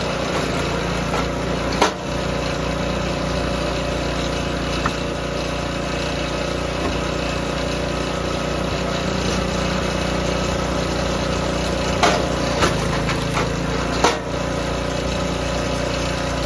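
Small gas engine of a DR K28 Pro log splitter running steadily, with several sharp cracks and knocks as hardwood rounds are split. The loudest come about two seconds in and about fourteen seconds in.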